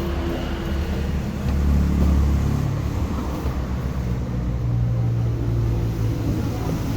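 Low rumble of a running vehicle engine, its pitch drifting up and down a little.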